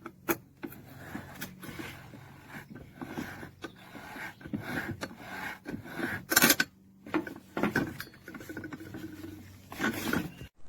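Irregular clicks, knocks and scrapes of objects being handled, with a few louder knocks about six seconds in and near the end; no motor is running.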